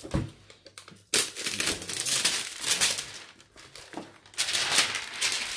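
Clear plastic wrapping crinkling loudly as a laptop is pulled out of its plastic sleeve, in two long rustling stretches: from about a second in to about three seconds, and again from about four and a half seconds.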